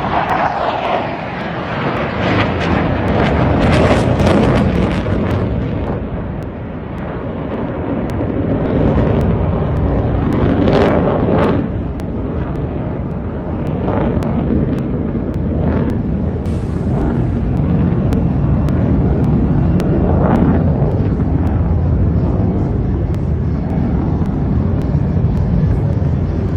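Loud jet noise from a Sukhoi Su-30MKV fighter's twin jet engines during a flying display, rumbling with a crackling edge. It swells and eases several times as the aircraft manoeuvres.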